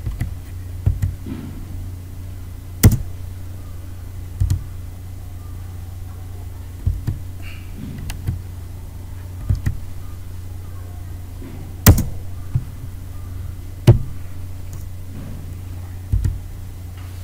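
Irregular sharp knocks and clicks, about a dozen, the loudest three coming about 3, 12 and 14 seconds in, over a steady low hum.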